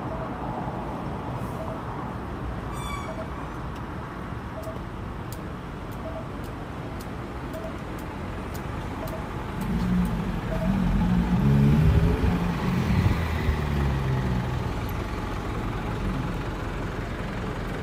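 Street traffic, with a motor vehicle's engine passing close and loudest about two-thirds of the way through. In the first half a faint short beep repeats about every second and a half.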